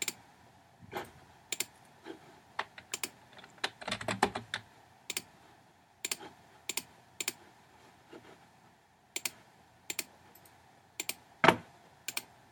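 Faint clicks of a computer keyboard and mouse: a quick run of keystrokes typing a short word about four seconds in, with single clicks spaced out before and after, the loudest near the end.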